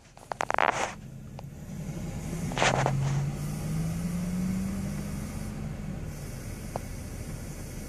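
A vehicle engine revving, its pitch climbing slowly for about three seconds and then easing off, with short bursts of rustling noise near the start.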